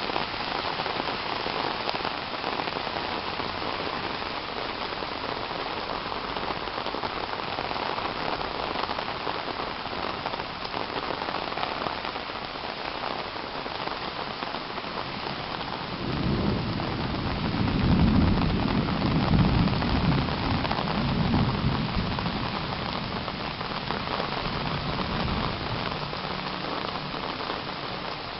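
Steady rain falling on foliage and pavement. Just past halfway, a low rumble of thunder rolls in, builds and dies away over about seven seconds.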